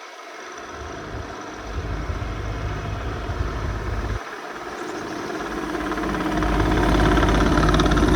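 Diesel engine of a Case TR310B compact track loader running, dipping briefly about four seconds in and then growing louder.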